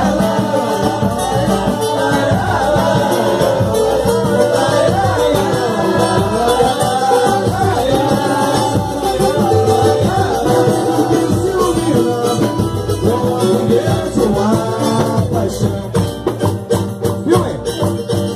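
Samba song: a voice singing a melody over guitar-like accompaniment and light percussion.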